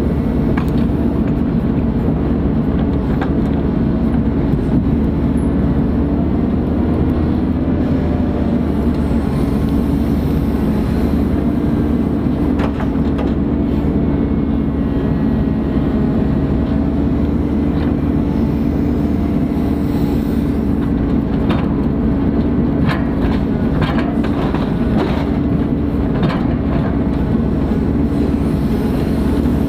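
Ponsse Buffalo forwarder's diesel engine running steadily under work, a constant low drone. A few short knocks come in the last third.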